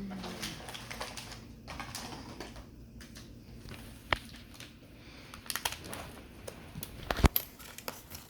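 Scattered light clicks and taps of small plastic toy pieces and packaging being handled, with a sharper click about four seconds in and a louder knock a little after seven seconds.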